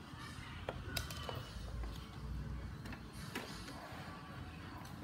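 A few light clicks and knocks over a low rumble: handling noise from a phone being moved about.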